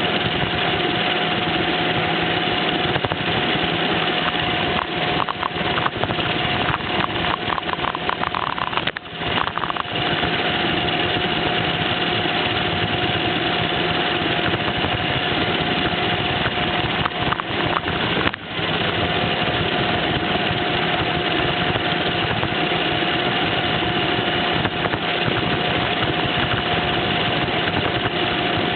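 Roomba robot vacuum running, its suction fan and brush motors whirring steadily, heard from right on top of the machine. The noise dips briefly twice, about nine seconds and about eighteen seconds in.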